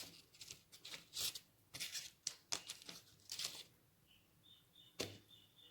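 Kitchen knife cutting the skin off a piece of raw jackfruit: a run of short, irregular rasping cuts through the tough rind, then one sharp knock near the end.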